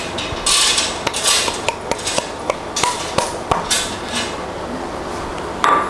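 Flour being tipped and scraped from a small bowl into a stainless steel mixing bowl: several short soft swishes as it slides out, with light knocks and clinks of the bowls between them, and a louder swish near the end.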